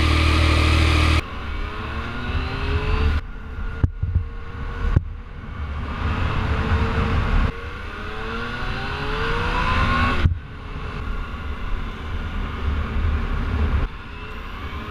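Yamaha FZ-09 motorcycle's three-cylinder engine being ridden and accelerated, its pitch rising again and again as it revs up. The sound comes in short pieces that cut off abruptly.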